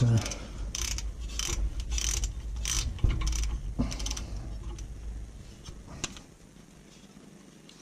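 Ratcheting spanner clicking on a rear brake caliper bolt, in short bursts every half second to second as it is swung back and forth, stopping about six seconds in.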